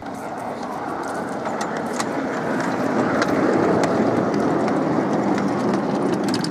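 Ride-on miniature railway train passing close by: wheels rolling on the track, with a scatter of sharp clicks. The sound swells over the first few seconds, then holds loud.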